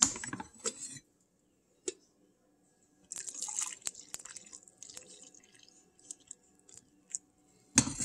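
Hot coffee poured from a glass coffee-maker carafe into a ceramic mug: a splashing, trickling pour that runs from about three seconds in and tapers off by about six seconds. Sharp clinks of the carafe being lifted come at the start, and louder knocks come near the end as it is set back on the machine.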